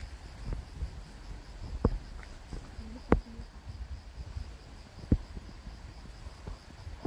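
Forest ambience: a faint, evenly pulsing insect chirr throughout, with a few sharp separate cracks or crackles, the loudest about three and five seconds in, over a low rumble of wind or handling on the microphone.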